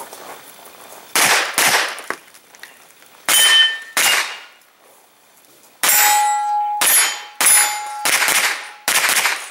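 Pistol-caliber carbine shots fired at an irregular pace, about nine in all. Several are followed by a brief metallic ring as steel targets are hit.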